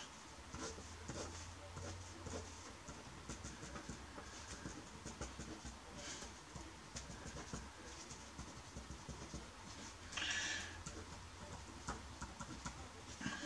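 Pencil writing on paper: faint, irregular scratching strokes as figures are written, with a brief louder hiss about ten seconds in.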